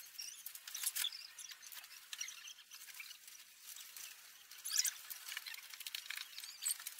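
Clear plastic packing wrap crinkling and rustling irregularly as it is pulled off and handled, with a few louder crackles about a second in and near five seconds.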